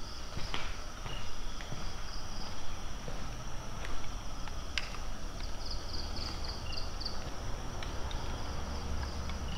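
Night insects chirring steadily at a high pitch, with a faster pulsing trill for a second or so mid-way, and a few sharp clicks.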